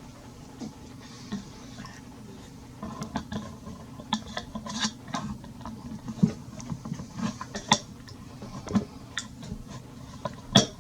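Handling noise from a handheld camera being repositioned: irregular rubbing and scattered clicks, the sharpest ones about six and nine seconds in, over a steady low hum.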